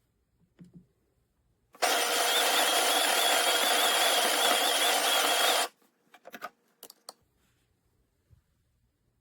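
Espresso machine running a motor steadily for about four seconds, then cutting off abruptly, followed by a few short clicks and knocks.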